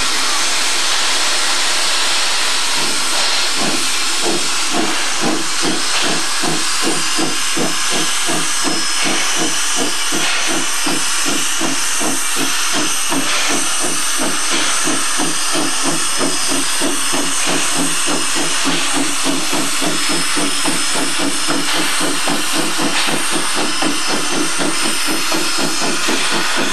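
Shay geared steam locomotive working: a steady loud hiss of escaping steam, with rapid exhaust chuffs from the stack. The chuffs start a few seconds in and settle into a quick, even beat of about three a second.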